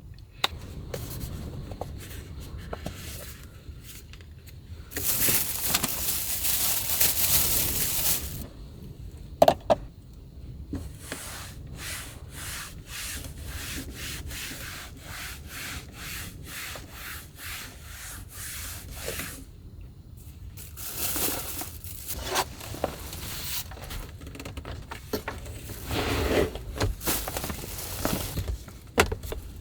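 Repeated rubbing or scrubbing strokes, a steady run of about two a second in the middle, with louder stretches of rustling noise for about three seconds near the start and again later.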